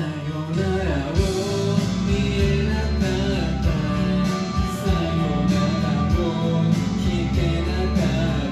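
A man singing a sad Japanese pop ballad into a handheld microphone over a band backing track.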